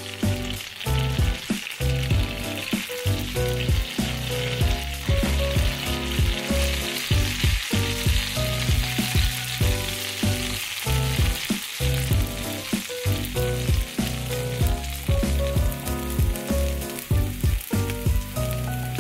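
Sweet potato mochi patties sizzling steadily as they fry in butter in a non-stick pan. Background music with a steady beat plays over the top.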